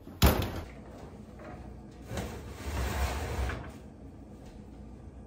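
A kitchen oven door is pulled open with a sharp clunk, then there is a second or so of metal rattling and scraping about two seconds in as a cast-iron bread pan and the oven rack are handled.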